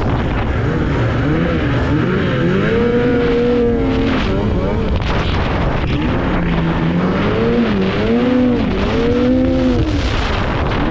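Two-stroke snowmobile engine running hard, its pitch climbing and dropping again and again as the throttle is worked, over a steady rushing noise.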